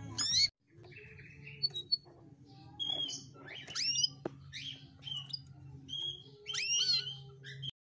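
Domestic canary chirping and calling in separate short whistled notes, several of them sweeping up in pitch, over a low steady hum.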